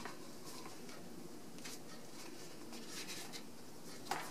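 Sheets of printer paper handled and shuffled: a few soft, brief paper rustles over steady room hiss.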